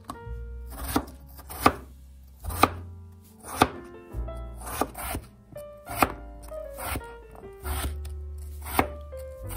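Chef's knife slicing a peeled raw potato on a plastic cutting board: a sharp knock as each cut meets the board, roughly one a second, over background music.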